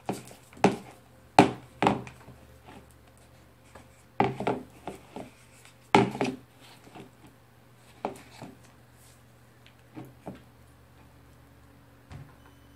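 Wooden stir stick knocking and clacking against a plastic bowl of slime mix as it is stirred: sharp single taps at irregular intervals, a few close together.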